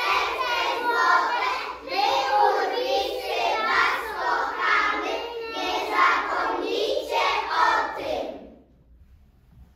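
A group of young children singing together in unison, stopping about eight and a half seconds in.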